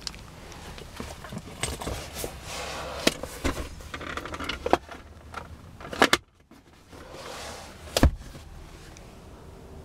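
Rustling and sharp clicks and knocks from hands working a car's rear leather seat, seatbelt buckle and centre armrest. The loudest is a single deep thump about eight seconds in.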